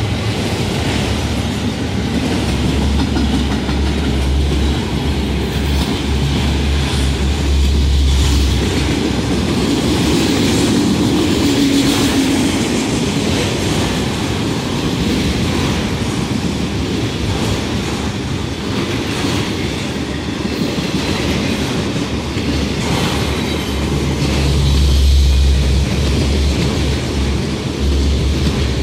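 Autorack freight cars rolling past close by, steady and loud: steel wheels running on the rails, with repeated clicks as the wheels cross rail joints.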